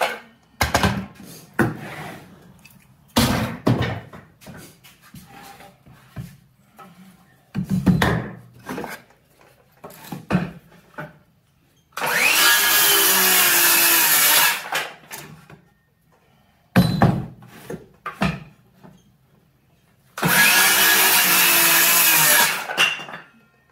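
DeWalt cordless circular saw cutting through 2x4 lumber, trimming overhanging edges: two cuts of about three seconds each, one starting about halfway through and the other near the end. Sharp knocks and clunks come in between.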